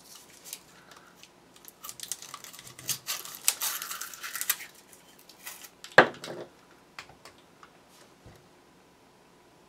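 Hands handling and taking apart a firework canister shell: scattered small clicks and a scratchy rustle from about two to four and a half seconds in, then one sharp knock about six seconds in.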